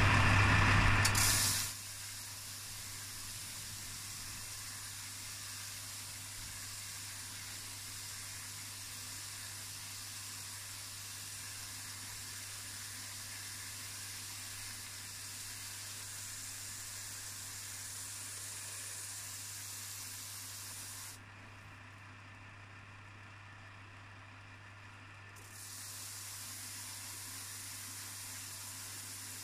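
Belt sander running with a steady hiss and a low hum as a metal part is ground against its coarse 36-grit emery-cloth belt. It is loud for the first couple of seconds, then drops suddenly to a faint, even level. The high part of the hiss disappears for about four seconds near the end.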